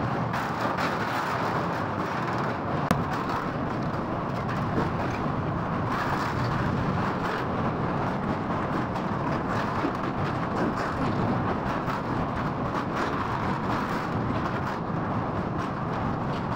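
Passenger train running across a steel truss girder bridge: a steady rumble of wheels on the rails, heard from an open coach door, with a light click about three seconds in.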